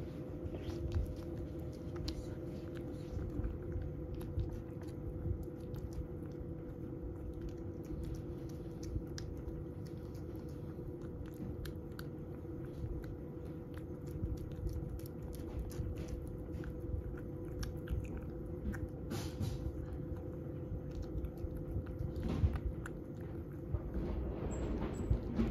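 A cat eating wet food from a ceramic bowl: a steady run of small, irregular wet chewing and lapping clicks.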